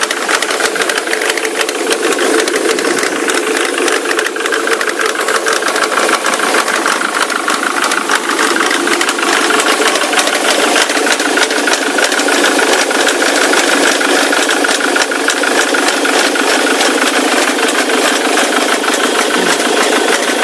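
Ford Mondeo Mk3 turbodiesel engine idling with a steady, rapid knocking. It is an unexplained engine knock that the owner hears coming from the left side, as if from the timing chain.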